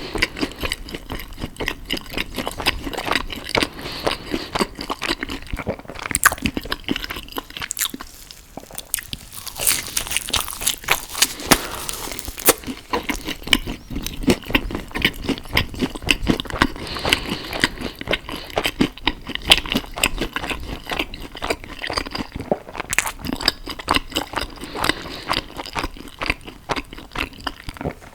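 Close-miked eating sounds: a person biting and chewing food, with a constant run of small crunches and wet clicks.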